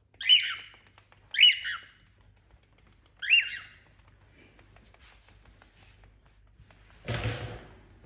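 Cockatiel giving three short, loud chirping calls, each rising then falling in pitch, the first two about a second apart and the third two seconds later. Near the end comes a brief rustling noise.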